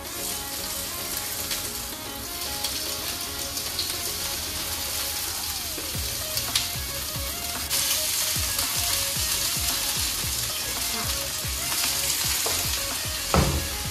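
Meat frying in hot oil in a small pan on a gas stove: a steady sizzle that grows louder about eight seconds in, with a sharp knock near the end.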